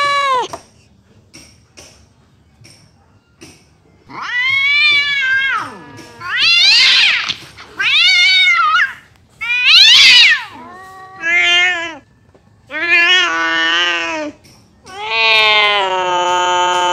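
Black domestic cat yowling: a call ends at the start, then after a pause of a few seconds come about six long, drawn-out calls that rise and fall in pitch, the last held steadier. The uploader takes the yowling for anger.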